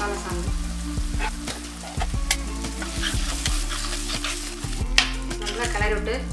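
A spatula stirring and scraping a thick onion-and-masala paste around a dark pot, the paste sizzling as it fries in oil.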